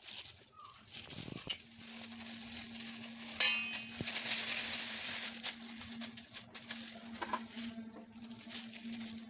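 Clear plastic glove crinkling and a metal spoon tapping and scraping against a steel bowl as biscuit dough is shaped and pressed by hand, with one sharper clink about three and a half seconds in. A steady low hum comes in about a second and a half in.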